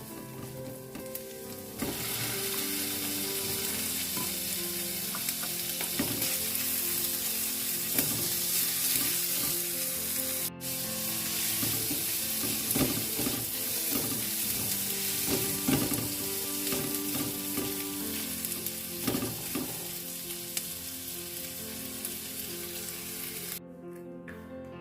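Food frying and sizzling in a hot pan while it is stirred, with clicks and scrapes of the utensil. The sizzle starts about two seconds in, drops out for a moment partway, and cuts off shortly before the end. Soft background music plays under it.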